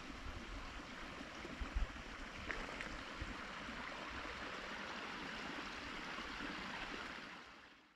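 Steady rush of wind over an exposed hillside, with low gusts buffeting the microphone in the first couple of seconds. It fades out near the end.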